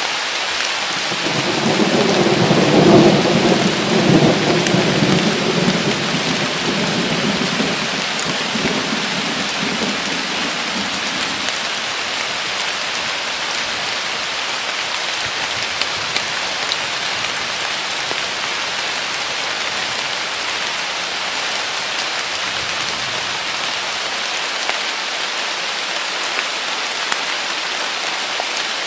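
Steady downpour of summer rain with a long roll of thunder that swells about a second in, peaks a couple of seconds later and rumbles away over the next several seconds.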